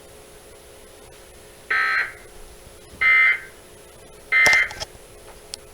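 Emergency Alert System end-of-message code: three short bursts of shrill digital data tones, about a second apart, signalling that the alert broadcast is over.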